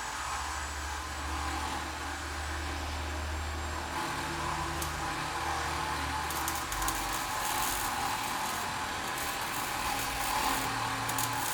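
Auto repair shop ambience: a steady hum and hiss of machinery, with low droning tones that shift in pitch every few seconds. A few light clicks and taps come in the second half.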